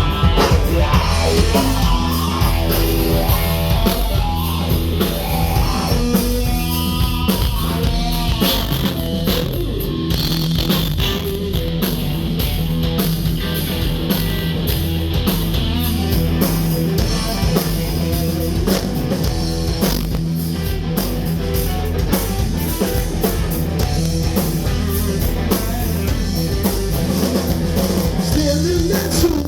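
Rock band playing an instrumental passage: electric guitar over a drum kit and bass.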